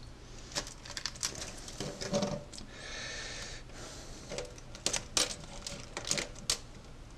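Goose eggshell cracking and crunching as an unhatched egg is broken apart by hand, with shell fragments ticking onto a stainless steel sink: an irregular run of sharp clicks and crackles, with a brief soft hiss about three seconds in.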